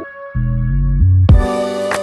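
Background instrumental music with sustained keyboard-like tones, a bass line and a few percussive hits; it dips briefly just at the start.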